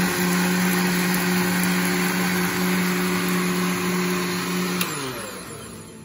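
Electric countertop blender (mixer grinder) running at a steady pitch, blending milk with coffee and sugar into a shake. About five seconds in it is switched off and its whine falls in pitch as the motor spins down.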